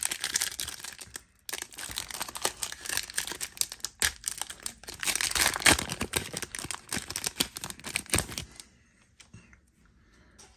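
Foil wrapper of a Panini Contenders trading-card pack crinkling and tearing as it is opened by hand, stopping about eight and a half seconds in.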